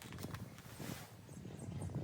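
Soft, irregular knocks and taps of objects being handled and set down, several a second.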